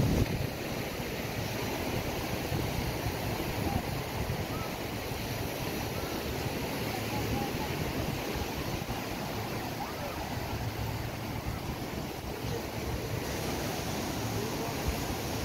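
Small surf washing onto a sandy beach, with wind rumbling on the microphone; a steady, even noise.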